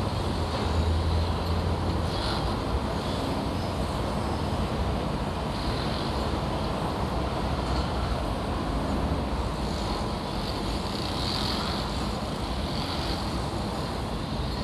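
Construction-site ambience: a steady low engine rumble under a wash of noise, with brief higher-pitched sounds every few seconds.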